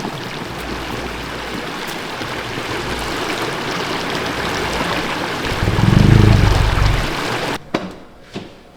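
A steady rushing noise, swelling with a low rumble about six seconds in, then cutting off suddenly near the end, followed by a few faint clicks.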